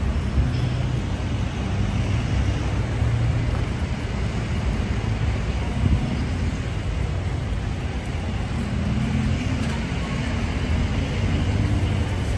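Street traffic: motor vehicle engines running close by, a steady low rumble with road noise.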